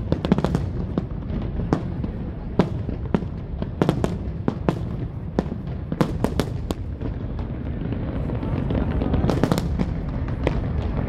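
Fireworks display: shells bursting in a rapid, irregular run of sharp bangs and crackles over a continuous low rumble, with a dense cluster of bangs about nine seconds in.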